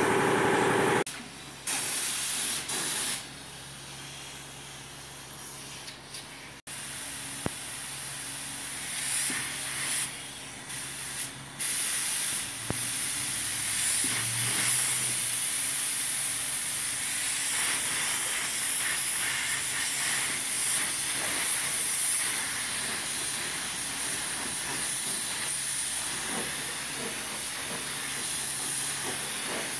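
Compressed-air paint spray gun hissing as it lays white paint on a car body. It fires in short bursts at first, then almost continuously from about twelve seconds in.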